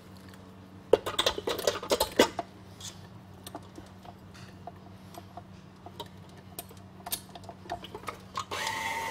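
Metal utensil clattering and knocking against a stainless-steel bowl: a busy flurry of knocks about a second in, then scattered light clicks. Near the end a steady whine starts.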